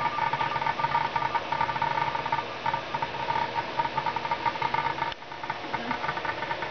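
Subwoofer driven by a homemade class-D amplifier built on an Uno32 microcontroller and a pair of IRFP450 MOSFETs, giving a rough, buzzing sound with steady high tones that pulse in a repeating rhythm. It drops in level about five seconds in.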